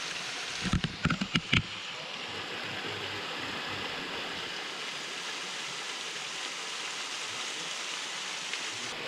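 Waterfall rushing steadily into a pool. A quick cluster of knocks comes about a second in.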